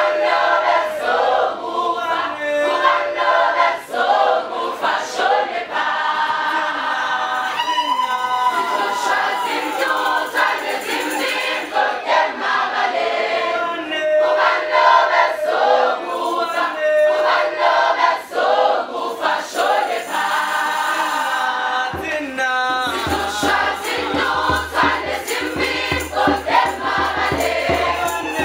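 Mixed choir of young women and men singing together in parts. About 22 seconds in, a low rumble comes in under the voices.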